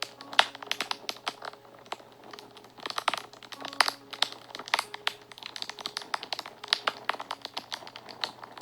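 Fire crackling and snapping: a dense, irregular run of sharp pops, with soft held notes of background music underneath.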